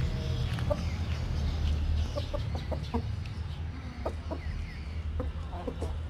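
A rooster and hens clucking in short, scattered calls over a low steady rumble.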